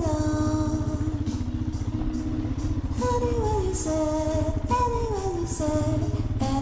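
Motorcycle engine running steadily while riding, mixed with background music that carries a sung melody of held and falling notes.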